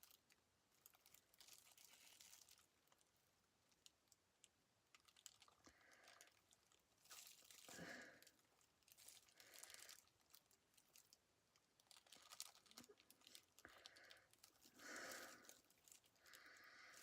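Faint handling of a small plastic frosting tube and miniature toy pieces with gloved hands: scattered light clicks and rustles, with several short squeaky squishes.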